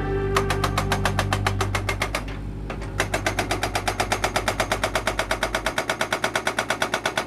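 Hydraulic breaker on an excavator hammering concrete in rapid, even blows of about nine a second, in a short run, a brief pause, then a longer run, over the low hum of the excavator's engine.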